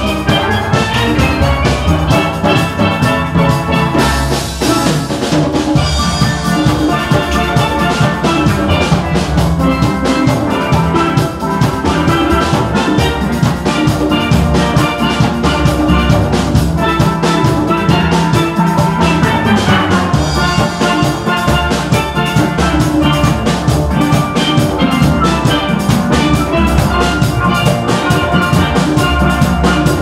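Steel band playing a tune: many chromed steelpans struck with sticks in quick rhythmic runs, over a steady drum beat.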